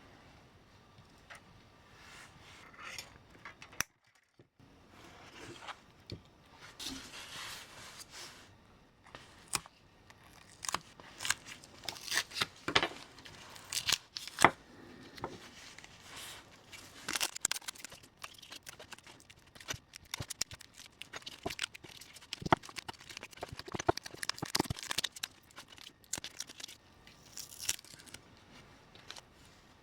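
Irregular hand-work noises: short scrapes, rustles and small sharp clicks, coming in uneven clusters that get busier after the first few seconds.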